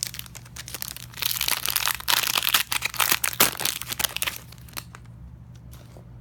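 Foil trading-card pack wrapper crinkling and tearing as it is opened, in a dense run of crackling from about a second in until near the end.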